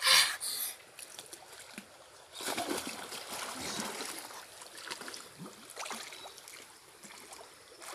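Water splashing and sloshing around a swimmer in a river pool. It is loudest briefly at the very start and again from about two and a half seconds in.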